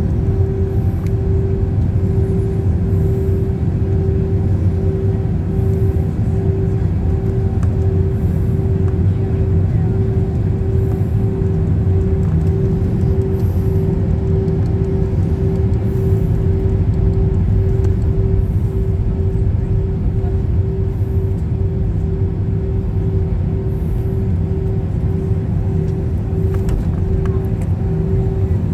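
Airliner cabin noise with the jet engines at idle: a steady low rumble, and over it a hum that pulses about twice a second.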